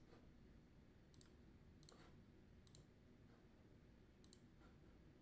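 Faint computer mouse clicks, about four or five spread out over near silence.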